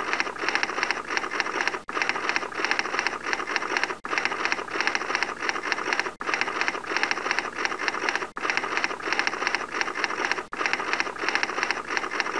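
Typing sound effect: rapid, even key clicks, repeated as a loop in stretches of about two seconds with a brief break between each.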